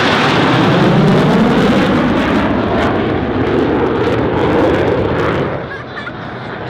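USAF Thunderbirds F-16 Fighting Falcon jets passing overhead in a loud jet roar that drops in pitch as they go by. It fades off about five and a half seconds in.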